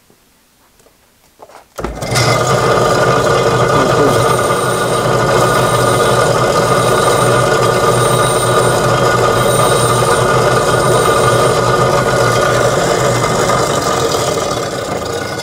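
A CBN bench grinder is switched on about two seconds in and runs steadily with a motor hum. A tungsten electrode is held against the wheel to sharpen it, adding a thin, on-and-off high whine through the middle. The sound starts to fade near the end as the grinder winds down.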